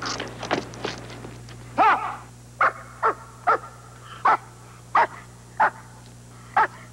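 German shepherd barking repeatedly: about a second of rapid panting, then eight loud single barks spaced half a second to a second apart.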